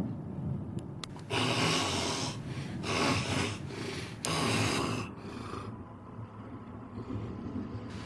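A man snoring heavily in his sleep: a run of loud, noisy snores and breaths between about one and six seconds in, with quieter low breathing after.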